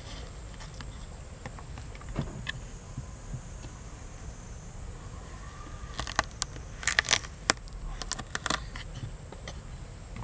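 Kitchen knife slicing a raw carrot on a wooden cutting board: a run of about ten crisp cuts starting about six seconds in, each stroke ending in a click on the board. A steady high insect buzz sits underneath, with a few faint taps from sliced onion being handled earlier.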